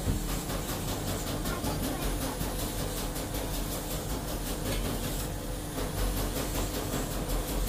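Steady mechanical rumble and hiss with a constant low hum.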